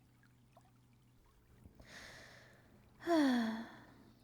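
A woman breathes in, then gives a sighing hum that slides down in pitch and fades, the loudest sound about three seconds in.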